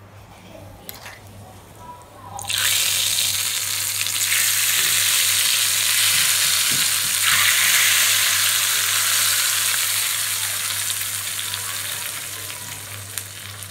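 Hot tempering oil with mustard seeds, curry leaves and dried red chillies poured onto sambar, sizzling loudly as it hits the liquid. The sizzle starts suddenly about two and a half seconds in and slowly dies away.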